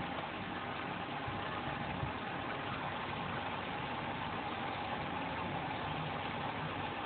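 King oyster mushrooms simmering and sizzling in their own released liquid in a frying pan with olive oil: a steady, even hiss as the water cooks off. A faint steady hum runs under it.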